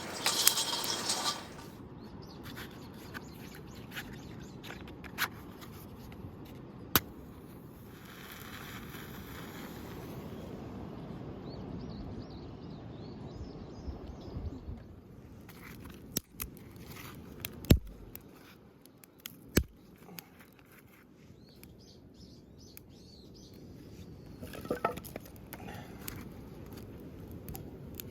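Outdoor ambience with faint bird chirps, broken by a handful of sharp clicks or knocks, the loudest a little past the middle.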